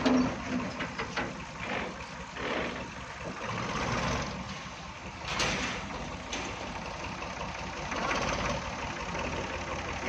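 Tractor engine running steadily, with a few sharp clicks.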